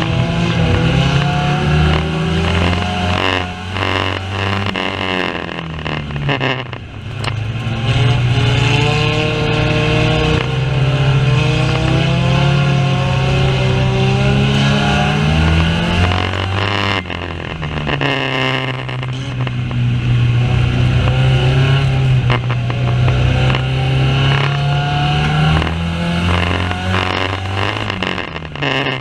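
Banger racing car engines running hard around the track, the engine note climbing for several seconds and then dropping away sharply, about three times, with scattered sharp knocks.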